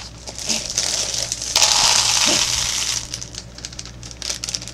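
Plastic jelly bean bag crinkling and rustling as it is handled, loudest for about a second and a half in the middle, with small clicks around it.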